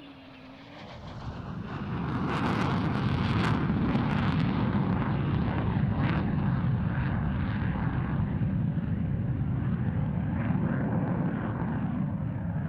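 The twin General Electric F110-GE-129 turbofans of a Boeing F-15QA Eagle running in afterburner. It is a loud jet roar that builds over the first couple of seconds and then holds steady, with crackling early on.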